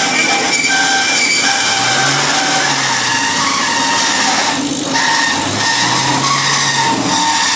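Road traffic noise with wind rushing over the microphone, and a vehicle engine revving up twice, about two seconds in and again past the middle.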